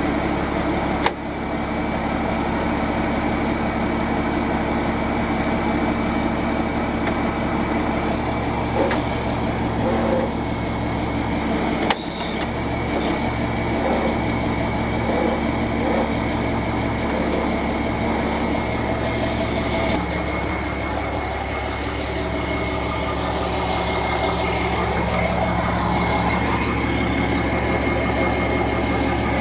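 Tow truck's engine idling steadily, with two sharp knocks, one about a second in and one about twelve seconds in.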